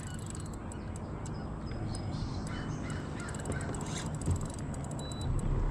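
Birds calling, with scattered light clicks; a low steady hum comes in near the end.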